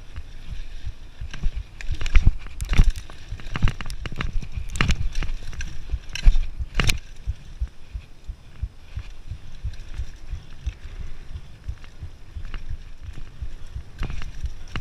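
Mountain bike riding over dirt singletrack: a steady low rumble of tyres and ride noise, broken by sharp rattles and knocks of the bike over bumps. The knocks come several times in the first seven seconds and again near the end.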